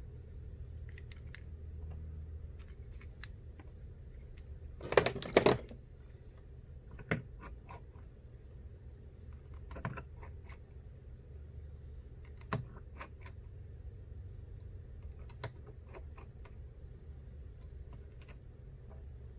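Small repair tools clicking and tapping against an iPhone's parts and the work surface during a screen replacement. There is a quick cluster of louder clicks about five seconds in, then scattered single clicks and taps.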